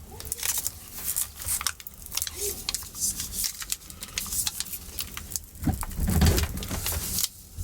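Glued MacBook Pro battery cells being pried off the case: irregular crackling and tearing as the adhesive lets go, with a few dull knocks about six seconds in.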